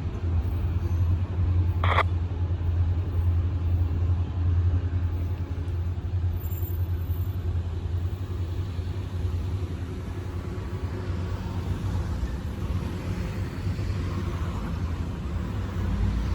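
Six-axle diesel locomotive hauling a loaded rock train up a steep grade: a steady low engine drone that slowly fades as the train pulls away. A single sharp click sounds about two seconds in.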